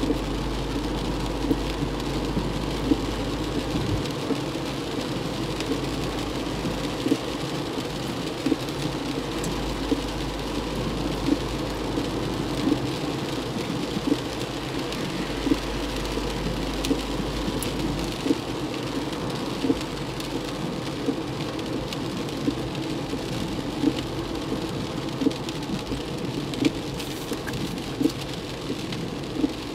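Inside a car driving through heavy rain: a steady wash of rain and wet-road tyre noise, with a short knock from the windscreen wipers about every one and a half seconds.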